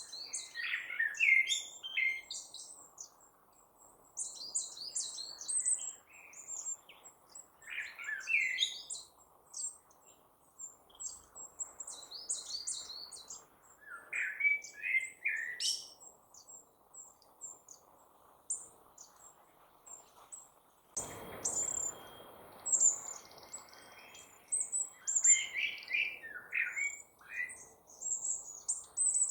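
Wild birds singing: short, repeated chirping phrases, with a faint steady rush of outdoor background noise that grows a little louder about two-thirds of the way through.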